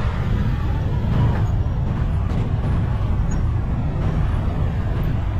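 Steady outdoor street noise with a heavy low rumble, like road traffic.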